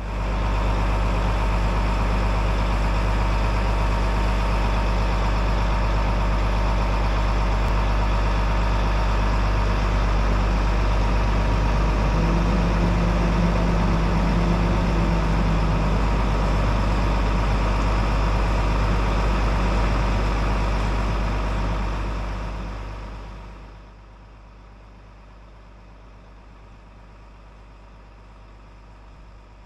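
Crane lorry's diesel engine running steadily, with an extra hum a little after the middle. About three-quarters of the way through it fades down to a much quieter steady running.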